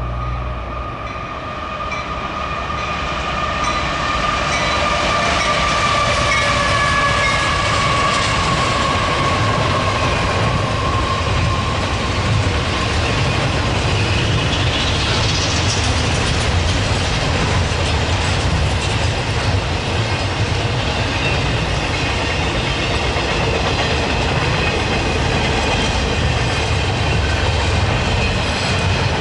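Double-stack intermodal freight train rolling past: a steady low rumble and rattle of the wheels and cars, with clacking over the rail joints. High steady squealing tones, slowly falling in pitch, run through the first half, and a rising squeal comes about halfway through.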